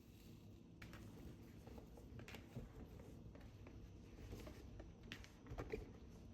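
Faint light clicks and rustles of small objects being handled, over a low steady hum, with a busier cluster of clicks about two and a half seconds in and again near the end.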